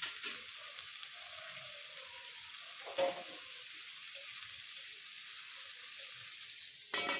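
Sliced taro corms frying in oil in an aluminium wok: a steady soft sizzle, with a short knock about three seconds in and another just before the end.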